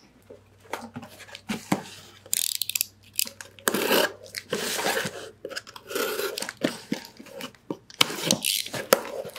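A box cutter slicing through clear packing tape on a cardboard box, heard as a run of short scraping and tearing bursts, with the cardboard knocking and rubbing as it is handled.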